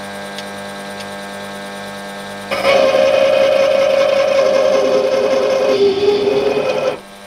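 Warco WM180 mini lathe running steadily. About two and a half seconds in, a 2.5 mm Glanze parting tool feeds into an EN3 mild steel bar and chatters: a loud ringing tone that drops in pitch near the end and stops about seven seconds in. The owner takes the chatter as a sign that this positive-rake parting tool is too aggressive for the mini lathe in mild steel.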